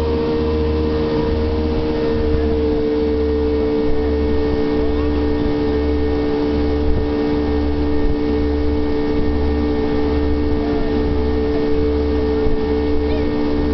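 Jet boat engine running steadily at speed, a constant drone, with an even low pulsing underneath about one and a half times a second.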